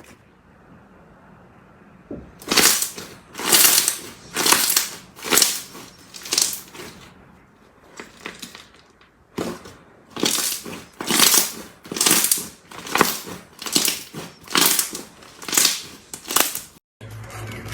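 Slime being squeezed and pressed by hand, giving loud wet crackling squishes about once a second: a run of five, a short pause, then a longer run of nine. Near the end it cuts suddenly to a steady low hum.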